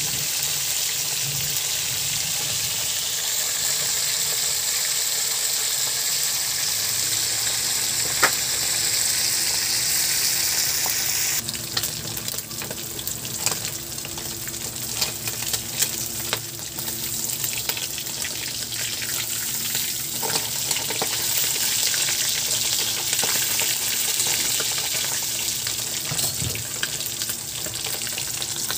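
Whole short mackerel (hasa-hasa) deep-frying in a wok of hot oil, giving a steady sizzle. From about twelve seconds in it turns to crackling and popping, with metal tongs clicking against the wok as the fish are turned.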